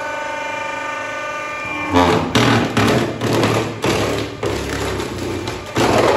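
Electric-motor-driven hydraulic firewood splitter running with a steady whining hum, then, about two seconds in, the ram presses into a log and the wood cracks and splits in a string of loud, sharp cracks, the loudest near the end.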